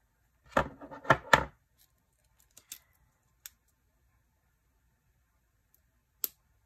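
Packaging of washi tape rolls being handled and picked open: three sharp clicks and knocks about half a second to a second and a half in, a few faint ticks after, and one more sharp click near the end.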